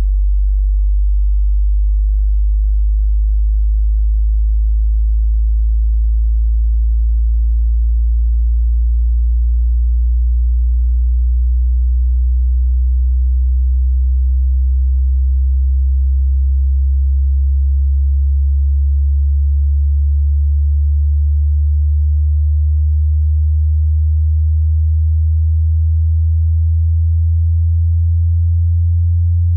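Hearing-test sine tone: a single pure tone in the deep bass, steady in loudness and sweeping slowly and evenly upward in pitch.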